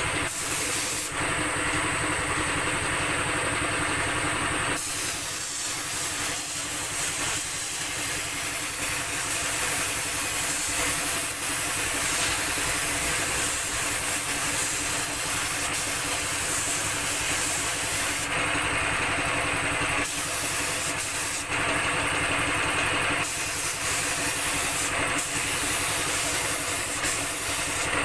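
Compressed-air paint spray gun hissing in long passes, stopping for a couple of seconds twice in the second half and briefly once more, over the steady hum of a motor running underneath.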